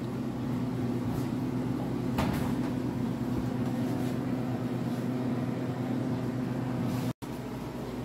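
Steady low machine hum, like a running appliance or air-conditioning unit, with a faint click about two seconds in. The sound cuts out completely for an instant near the end.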